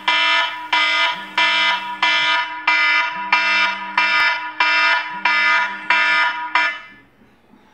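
iPhone alarm ringing: a pitched chime repeating about three times every two seconds over a lower pulsing tone, stopping abruptly about seven seconds in.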